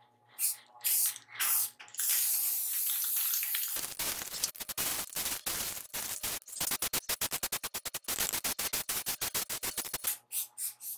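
Aerosol spray can hissing onto a wooden tabletop: a few short hisses, then a steady hiss for about two seconds, followed by a long run of rapid short pulses until near the end.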